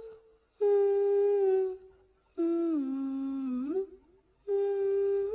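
A person humming a slow tune in three long held notes with short pauses between them. The second note drops lower and then slides back up.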